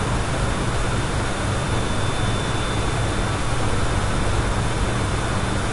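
Steady background hiss with a low hum, unchanging throughout.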